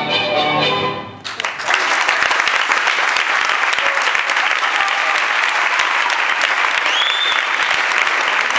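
Tango music plays for about a second and stops, then an audience breaks into steady applause, many hands clapping.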